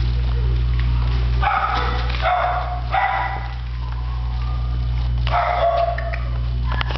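Dog barking: a few short barks in three bunches, about a second and a half in, around three seconds in, and again near the end, over a steady low hum.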